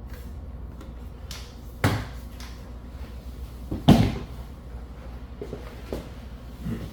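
Handling knocks and clunks as a rifle is taken off a scale and handled: a thud about two seconds in, a louder clunk about four seconds in, and a few lighter clicks.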